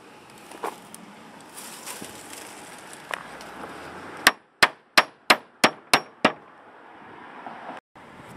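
A hammer driving a nail into a wooden fence rail: a few light taps, then seven sharp ringing blows at about three a second.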